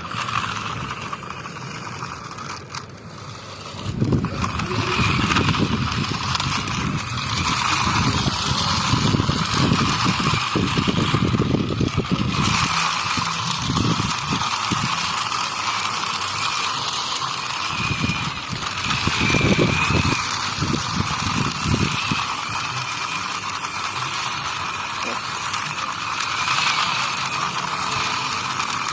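Plastic toy vehicle's gear mechanism whirring with a steady whine over an uneven rattling rumble.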